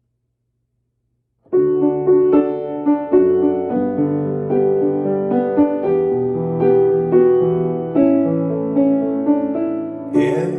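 Piano music starting after about a second and a half of silence: struck notes and chords of an instrumental intro.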